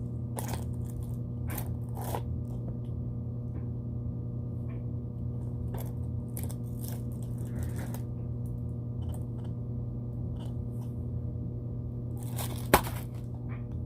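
Plastic toy packaging handled and opened: scattered crinkles and small clicks as an LOL Surprise ball is unwrapped, with one sharp snap near the end, over a steady low hum.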